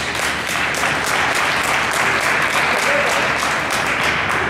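Spectators and players in a gym applauding, a steady spread of many hands clapping during a stoppage while a player is down on the court.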